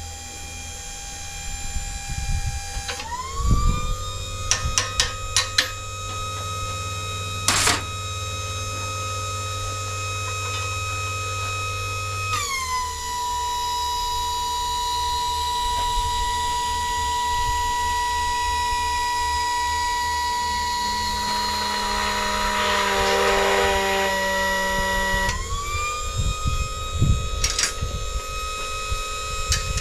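An electric power tool's motor whining steadily. Its pitch glides up a few seconds in, drops about halfway through as it takes a load, and rises again near the end. Several sharp clicks come early on the high-pitched stretch.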